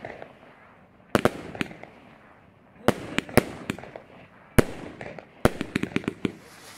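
Consumer firework battery (cake) firing aerial shots. Sharp bangs come in small clusters every second or so, with a tight run of several bangs near the end, each trailing off in echo.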